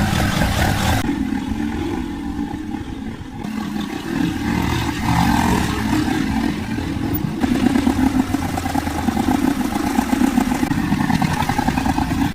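Tractor engine running, with some mechanical clatter and its speed rising and falling. The sound changes abruptly a few times.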